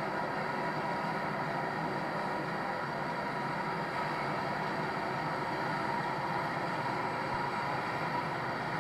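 Steady airport ramp noise: an even drone with a faint steady whine running through it, unchanging throughout.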